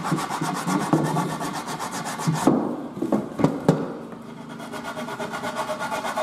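Hand-sanding the rounded-over end of an oak stair floor capping with folded sandpaper: quick back-and-forth scraping strokes, turning to lighter, steadier rubbing about four seconds in.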